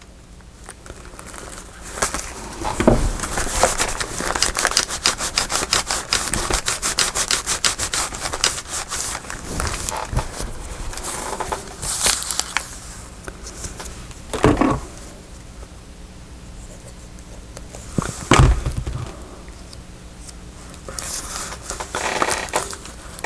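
Paper crafting materials being handled on a table. A long run of rapid crackling and scraping lasts about ten seconds, followed by a few knocks about two thirds of the way through and light rustling near the end.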